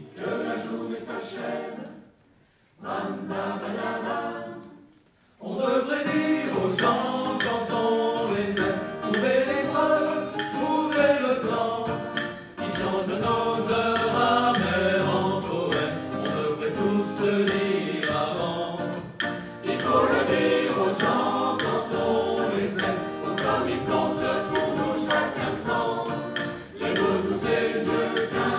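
Mixed choir of men's and women's voices singing a French song: two short phrases separated by brief pauses, then continuous full singing from about five seconds in.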